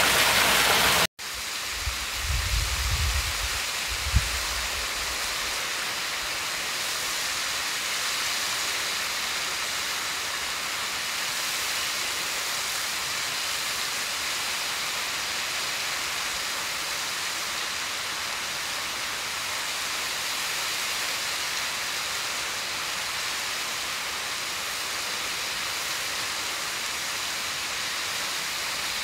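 Waterfall heard from a distance: a steady, even hiss of falling water. About a second in it cuts from a louder, fuller rush of water close by. A few seconds of low bumping on the microphone follow the cut, with one sharp knock about four seconds in.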